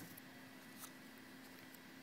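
Near silence: faint room tone with a faint steady hum and one soft tick a little under a second in.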